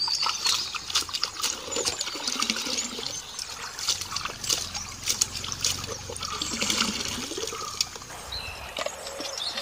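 Water sloshing and trickling in a steel bowl as live crabs are rinsed in stream water, with many small, irregular splashes.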